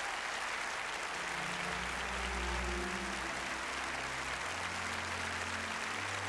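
Large theatre audience applauding steadily in a standing ovation. About a second and a half in, low held music notes come in underneath the clapping.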